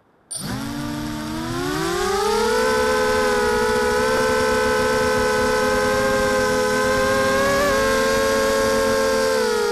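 Mini H quadcopter's four T-Motor 2206 brushless motors spinning Gemfan 5030 two-blade props: a whine that starts abruptly, rises in pitch for about two seconds as the throttle comes up for takeoff, then holds steady. It wavers briefly near the end and drops slightly in pitch.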